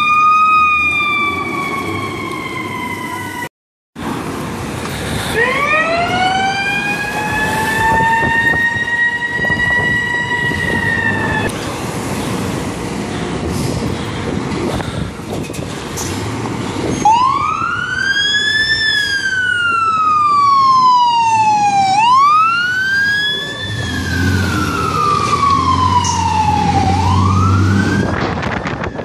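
Fire truck sirens. A wailing siren falls in pitch and cuts off a few seconds in. Then a siren winds up and holds a steady high note for about six seconds before stopping. Later a wail rises quickly and sweeps slowly down three times, with a second siren over it and the low rumble of a fire truck's engine pulling out.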